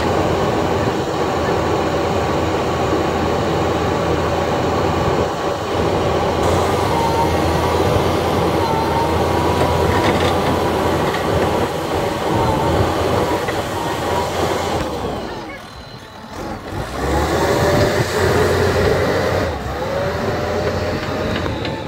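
JCB 3DX Super backhoe loader's diesel engine running under load as the backhoe arm works, with thin squealing tones that waver in pitch. The noise drops away briefly about two-thirds of the way through, then picks up again with short rising squeals.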